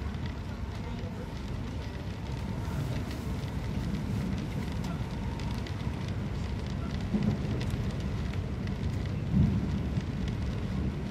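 Steady low rumble of a Tohoku Shinkansen running, heard from inside the cabin, with heavy rain ticking against the window glass. Two brief low thumps stand out, the louder near the end.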